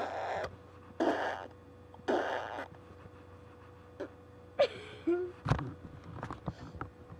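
Silly wordless mouth noises made for fun: three breathy, hissing blowing bursts about a second apart, then a short squeaky vocal sound, a low thump and a few clicks.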